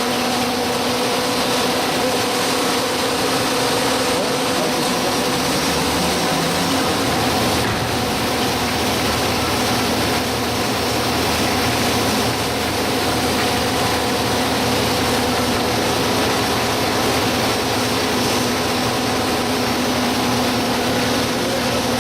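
Three-arm winding machine running with a steady mechanical hum over a constant whirring noise.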